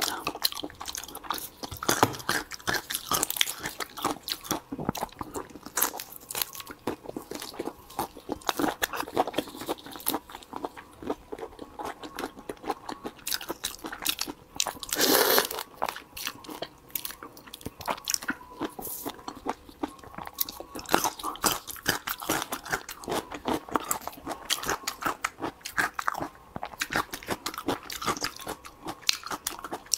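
Close-miked chewing and crunching of raw marinated shrimp, the shells cracking between the teeth in dense, irregular clicks, with wet sucking at the shrimp. One louder, longer noise comes about halfway through.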